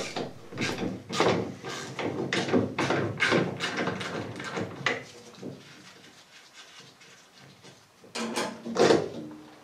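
Ratchet and socket working the two nuts that hold the brake master cylinder to the vacuum booster: runs of quick clicks and metal clinks that die away about halfway through, with a few more sharp clinks near the end as the nuts come free.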